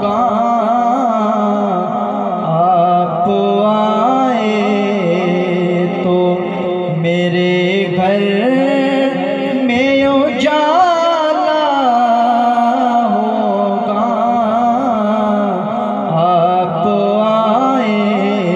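A man singing a naat through a hand-held microphone, holding long, drawn-out melodic phrases with wavering, ornamented notes.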